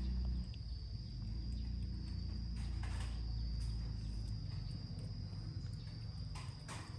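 Cat eating rice off a plastic plate: soft chewing and smacking, with a few louder mouthfuls about three seconds in and again near the end, over a steady high-pitched whine and a low rumble.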